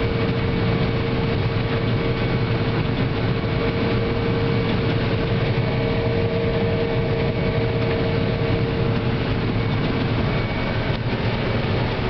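Combine harvester running in corn, heard from inside the cab: a steady, loud machinery drone with a steady whine that fades out about three-quarters of the way through.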